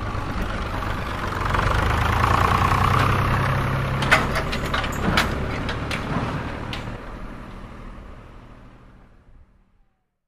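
A DIY mini tractor's motor runs steadily, with a few sharp clicks about halfway through. The sound fades away near the end.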